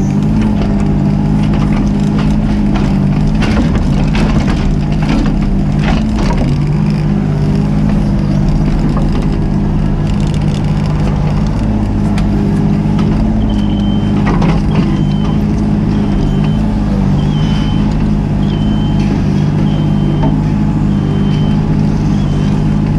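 Mini excavator's diesel engine running steadily under working load, its pitch shifting as the hydraulics are worked, with scattered knocks and clanks. Over the second half, a short high beep repeats about once a second.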